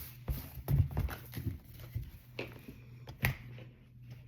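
A series of irregular soft knocks and taps over a steady low hum.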